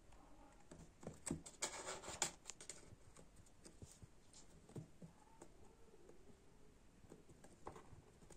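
A kitten's claws scratching and tapping faintly on a cardboard box, with a louder scrabbling flurry about one and a half to two and a half seconds in.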